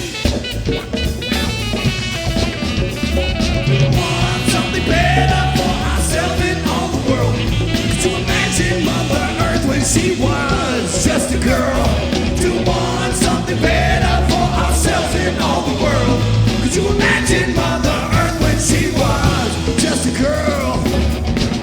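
Live rap-rock band playing loud, with a steady driving beat under bending melodic lines.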